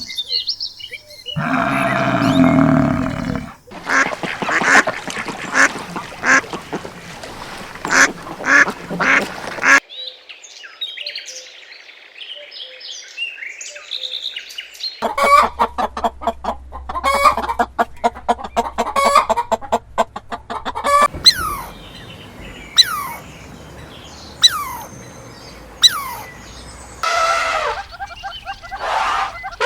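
Duck quacks and goose honks in a series of short, changing clips, with stretches of high, short bird chirps and falling calls in between.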